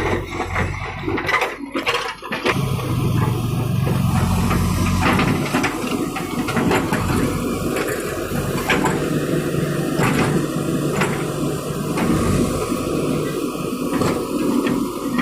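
Heavy machine's engine running steadily, with a run of sharp knocks and clatter in the first couple of seconds and a few scattered clicks over the engine later on.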